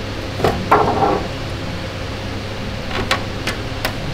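Sheet-metal body panel of a Steyr 1500A being positioned by hand: a metallic knock and short ringing rattle about half a second in, then a few light taps later on, over a steady fan-like workshop hum.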